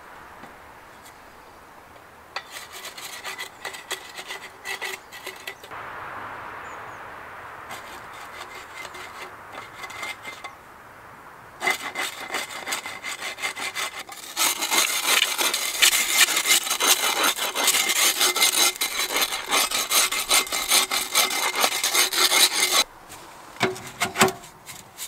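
Hand saw cutting through wood in several runs of rapid rasping strokes, with short pauses between them. The last and longest run is the loudest and ends a couple of seconds before the finish.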